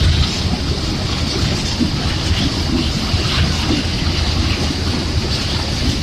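Freight train of tarpaulin-covered wagons rolling past at speed: a loud, steady rush and low rumble of wheels on the rails, with faint irregular clicks.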